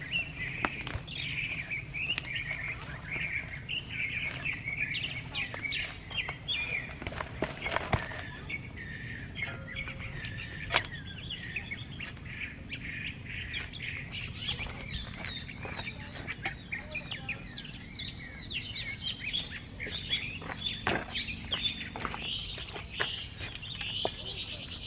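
Birds chirping and singing steadily, with a few sharp knocks and scrapes from a spade digging soil in a large planter pot.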